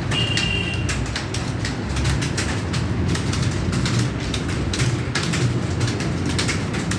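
Rapid, continuous clatter of computer keyboard keystrokes from more than one person typing at full speed in the last seconds of a timed typing test, over a low steady hum. A short high tone lasts about a second right at the start.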